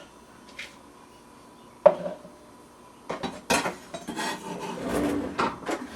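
Kitchen utensils on a cutting board and a plastic salad dressing shaker: one sharp knock about two seconds in, then a run of clinks and scrapes as chopped herbs are tipped into the shaker.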